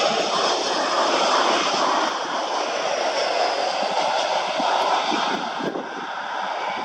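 Jet engines of a Jet2 Boeing 737 landing and rolling out along the runway: a steady jet rush that eases a little near the end.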